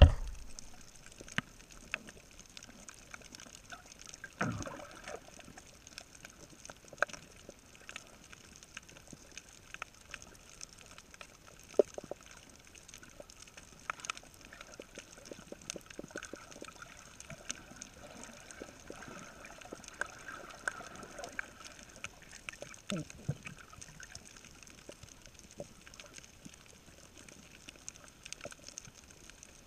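Underwater coral-reef ambience heard through a camera's waterproof housing: a steady hiss scattered with many sharp clicks, and two brief deeper sounds, one about four seconds in and one about three-quarters of the way through.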